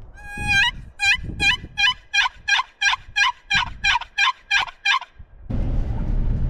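Turkey calls: a run of about a dozen evenly spaced, clear calling notes, roughly three a second, lasting about five seconds. Near the end, steady low road noise from the truck comes in.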